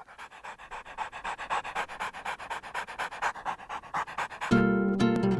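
A dog breathing in quick, even puffs, about six a second, right at the microphone and growing louder. About four and a half seconds in, plucked guitar music starts and drowns it out.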